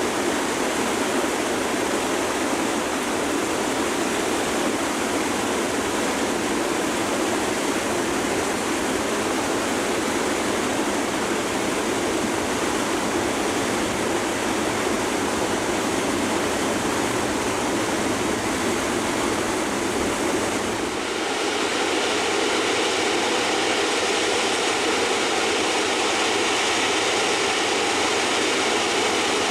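Steady rushing of fast-moving floodwater. About two-thirds of the way in it changes abruptly to a thinner, hissier rush with less low end.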